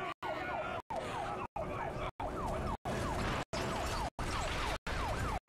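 Police-style siren sounding in quick falling sweeps, about three a second, over a low rumble. The sound is chopped by brief dropouts at regular intervals.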